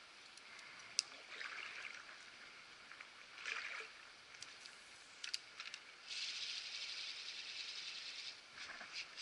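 A small woodland creek trickling faintly, with a few light clicks and, about six seconds in, a louder steady hiss lasting around two seconds.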